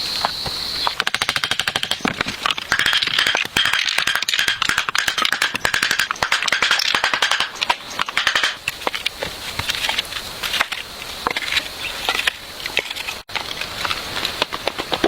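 Rapid, dense crackling clicks, many a second, starting about a second in and thinning to scattered clicks after about nine seconds. A steady high tone is heard before the crackling and again near the end.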